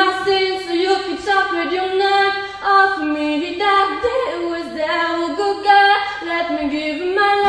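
A young woman singing solo and unaccompanied, holding notes and stepping between pitches in a melody.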